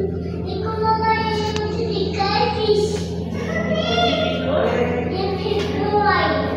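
High-pitched children's voices, singing or calling out in several drawn-out phrases, over a steady low hum.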